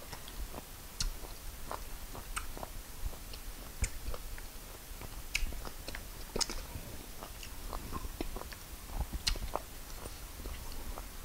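Close-miked chewing and eating of fufu and peanut soup by hand: irregular small clicks and mouth smacks.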